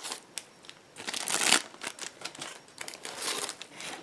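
Clear plastic packaging crinkling and clicking as a plastic box is handled and opened and plastic bags are pulled out of it, loudest about a second in.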